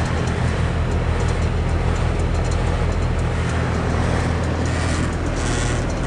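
Lennox Merit 13HPX 2.5-ton heat pump outdoor unit running in cooling mode: the compressor hums steadily under the rush of air from the condenser fan.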